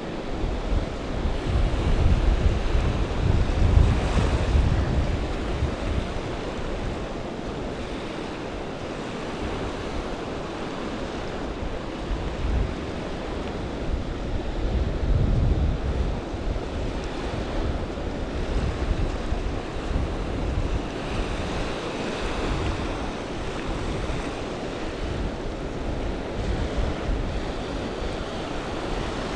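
Small ocean waves washing in and out over the sand at the waterline, with wind buffeting the microphone in heavy gusts, strongest about two to five seconds in and again about halfway through.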